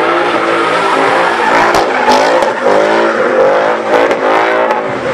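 A car engine held at high revs, its pitch wavering up and down as the car spins donuts, over the hiss and squeal of the spinning tyres.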